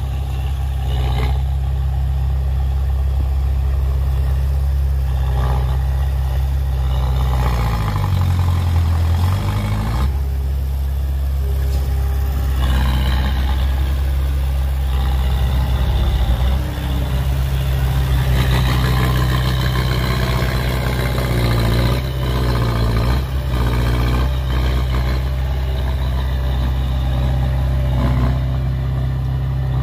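Heavy diesel engine of earthmoving machinery running under load, a deep steady drone whose pitch dips and climbs back once about eight to ten seconds in.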